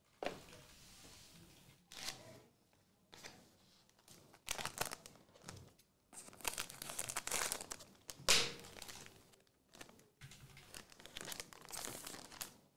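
Foil trading-card pack wrappers being torn open and crinkled by hand, in irregular bursts of tearing and rustling with a sharper, louder rip about eight seconds in.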